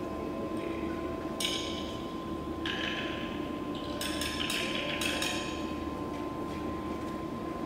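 Live improvised percussion: sparse strikes on something metallic, each ringing briefly. One comes about a second and a half in and another under three seconds in, then a quick cluster of strikes follows. Under it all runs a steady hum with a thin held high tone.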